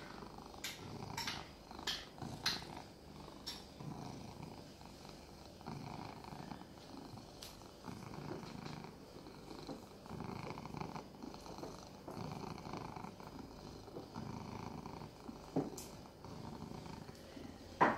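Domestic cat purring steadily in slow in-and-out pulses while being scratched, with a few sharp clicks in the first few seconds.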